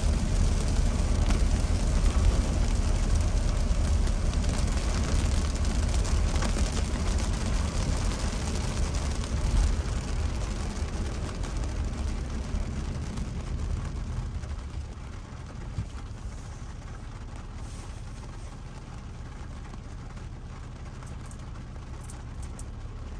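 Heavy rain on a car and tyres hissing over a flooded road, with a low road rumble inside the cabin. About halfway through, the rumble and hiss die down as the car comes to a stop, leaving rain pattering on the windshield and roof.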